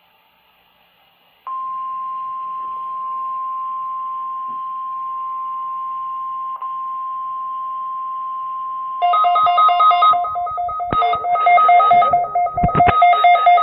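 NOAA Weather Radio warning alarm: after a moment of near silence, one steady high tone sounds for about nine seconds. About nine seconds in, a louder pulsed, ringing two-note alarm starts over it, like a telephone bell, with a couple of sharp clicks, and keeps going.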